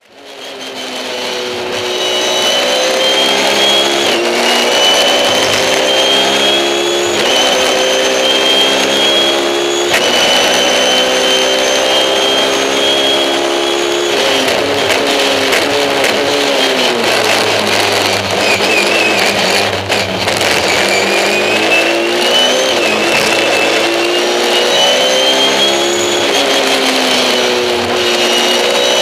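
Cabin sound of a BMW 320si E90 touring car's four-cylinder racing engine under hard acceleration. The revs climb and drop sharply at four quick upshifts, sag in pitch around the middle as the car brakes and changes down, then climb again to one more upshift near the end, with a high whine rising and falling with the revs. The sound fades in over the first second or two.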